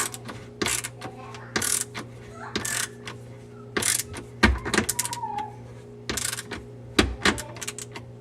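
Irregular clicks and scrapes of a hose clamp being tightened onto a rubber drain connection under a sink, with two heavier knocks about halfway through and near the end.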